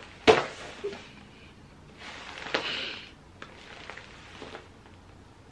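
A woman's sharp hand clap near the start, then soft breaths and sniffs as she holds her hand over her face, overcome with emotion.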